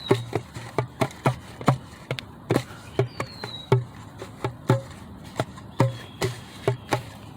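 A drum struck by hand in an uneven, halting rhythm, about two to three hits a second. A bird gives a short, high, falling whistle about three seconds in, and a fainter call near the end.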